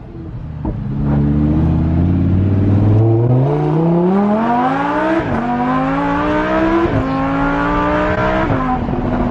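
Lamborghini Huracán's 5.2-litre V10 through an aftermarket exhaust, accelerating hard: engine pitch climbs steadily, then drops sharply with each of three quick upshifts, and settles to a steady lower pitch near the end.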